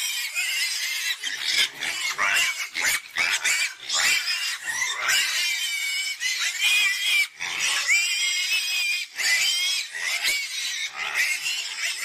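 Several young domestic pigs squealing together, many high-pitched squeals overlapping without a break.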